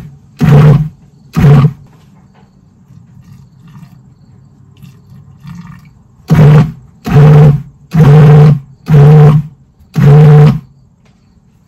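Food processor motor pulsing in short bursts of about half a second, chopping pie crust dough as water is drizzled in: two pulses near the start, then five more after a pause of about four seconds.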